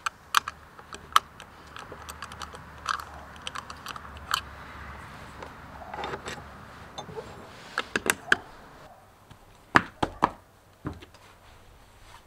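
Old iron padlock being unlocked with a key and worked off a metal door hasp: a run of sharp metal clicks and rattles. A few heavier knocks follow near the end as the door is opened.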